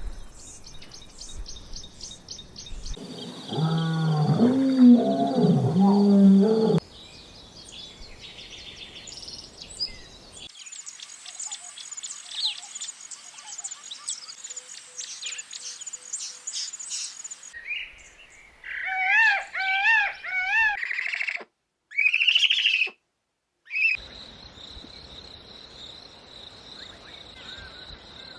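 A string of different animal recordings cut one after another: high bird chirps, a loud lower-pitched call about three to seven seconds in, dense high chirping, a few warbling calls, and a faint steady hiss near the end.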